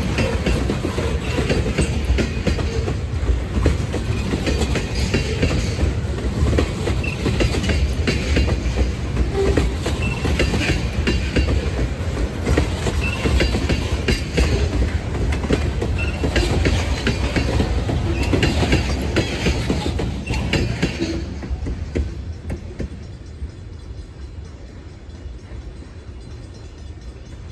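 Freight train's tank cars and covered hoppers rolling past, a steady rumble of steel wheels with repeated clicks over the rail joints. About three-quarters of the way through the sound drops off as the last car passes, then fades as the train moves away.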